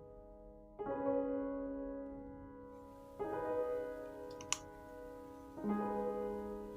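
Background piano music: three sustained chords, each struck about two and a half seconds after the last and left to fade. A short sharp click sounds about four and a half seconds in.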